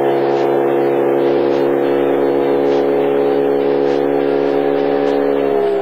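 Motor of a small flats skiff running steadily at speed, one even drone that sags slightly in pitch near the end.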